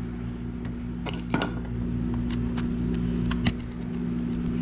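Pliers tightening the handle nut on a Johnson 100A spincast reel: several sharp metal clicks and a brief squeak, over a steady low hum.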